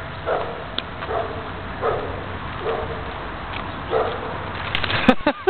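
German shepherd dog barking at a squirrel it has chased up a tree: about five short barks, roughly one a second.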